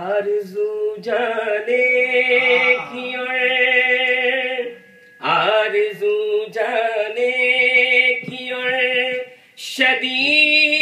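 A man's solo voice singing Urdu naat verses in tarannum, the melodic chanted style of reciting poetry. He sings in three phrases of long held notes, with brief breaks about five seconds in and again near the end.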